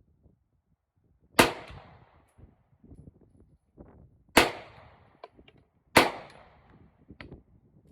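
Three 9mm shots from a Ruger Security-9 pistol, slow aimed fire spaced a second and a half to three seconds apart, each with a short echoing tail. A few fainter sharp clicks fall between the later shots.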